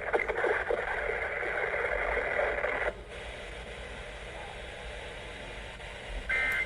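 NOAA Weather Radio receivers hissing with static for about three seconds, then dropping to a low hiss. Near the end comes a short burst of SAME digital data tones, the end-of-message code that closes the weekly test broadcast.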